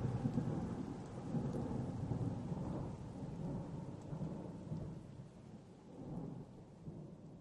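A low rumble under a steady hiss, like a distant storm with rain, fading out over the last few seconds.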